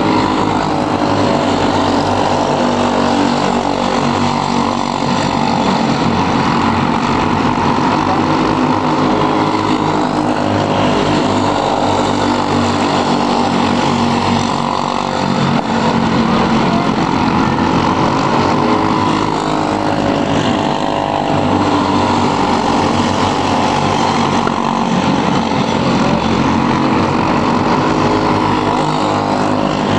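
Several box-stock Briggs & Stratton Animal single-cylinder four-stroke kart engines racing at once, a steady overlapping engine drone that rises and falls slightly as the karts pass.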